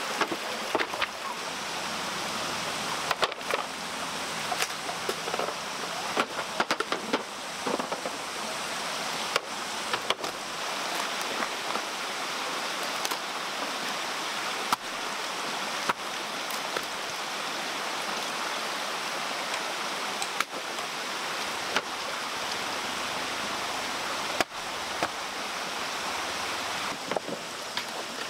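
Shallow creek water running with a steady rush, with scattered sharp knocks and clatters of bamboo poles and wood being handled and set down.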